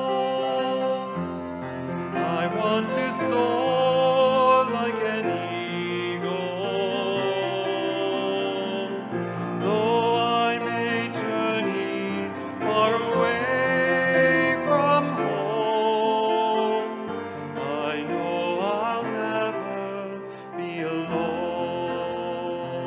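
A slow hymn: a held melody line with vibrato and sliding notes over a sustained accompaniment.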